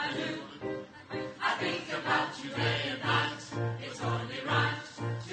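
Community choir singing in harmony, with a low beat about twice a second joining in about halfway through.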